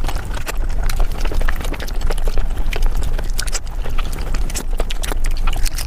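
Mukbang eating sounds played back sped up: a fast, dense run of wet chewing and mouth clicks.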